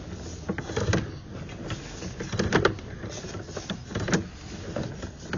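Sewer inspection camera rig at work in a sewer line: irregular clicks and knocks over a steady hiss as the camera's push cable is worked through the pipe.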